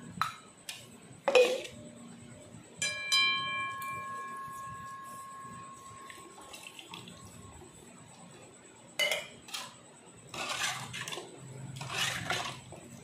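Metal puja vessels, a brass glass and pot, knocking against each other and the aluminium basin as they are washed after scouring. A sharp clank comes about a second in, and about three seconds in a knock leaves one vessel ringing with a clear metallic tone that fades over a few seconds. More knocks and some scrubbing follow near the end.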